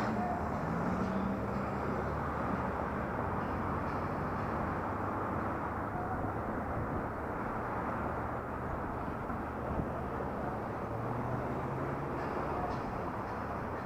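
Steady rushing wind and road noise on a helmet-mounted action camera during a ride, with a low engine hum that drifts up and down in pitch now and then.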